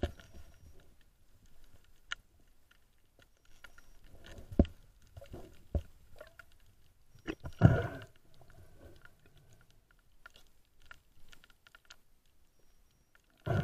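Muffled underwater recording of a spearfisher moving over rocky seabed: scattered sharp clicks and knocks, with a louder rush of noise a little past halfway.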